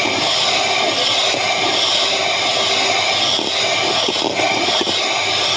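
Electric hand mixer running steadily, its beaters whipping cream in a stainless steel bowl.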